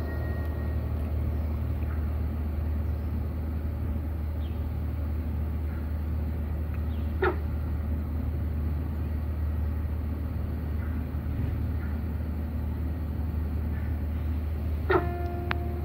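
Outdoor background noise: a steady low rumble under an even hiss, with two brief sharp sounds, one about seven seconds in and one near the end.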